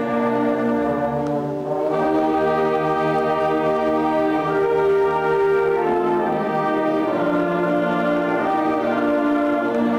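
Youth concert band of flutes, saxophones and brass playing slow, held chords, moving to new chords about two seconds in and again about six seconds in.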